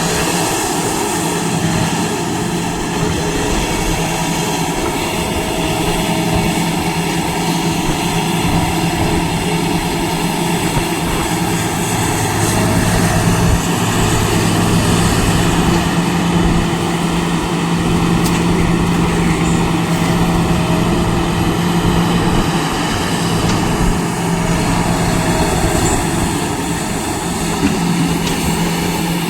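Heavy earthmoving machine's diesel engine running steadily under work, a little louder for a few seconds about halfway through.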